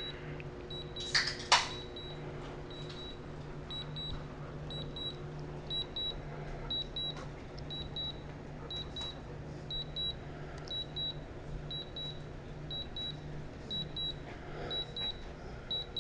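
Drone remote controller or flight app beeping a low-battery return-to-home alert: short high-pitched beeps, mostly in pairs, repeating about once a second. Two sharp clicks sound about a second in.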